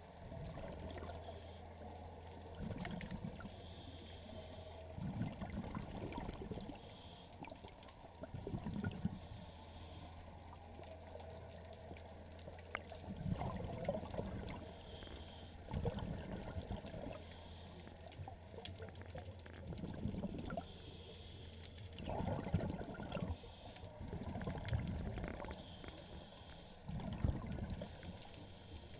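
Underwater water noise, muffled, with gurgling swells every two to three seconds.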